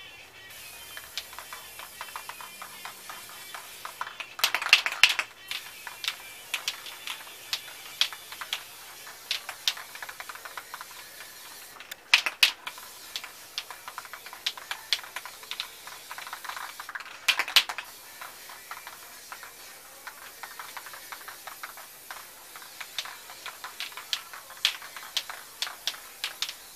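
Aerosol spray paint cans hissing in short bursts, three times, each about a second long. Frequent irregular sharp clicks come in between.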